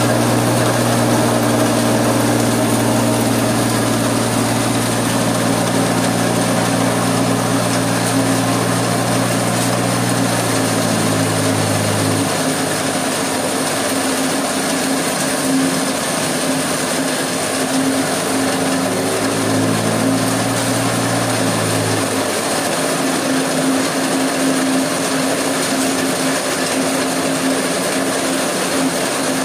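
Small hammer mill stone crusher, driven by a three-phase electric motor, running steadily with a continuous mechanical clatter and hum. A low hum drops out about twelve seconds in, comes back briefly, then drops out again.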